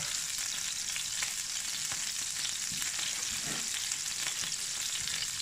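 Hot beef fat and oil sizzling steadily in an empty frying pan, with fine crackles.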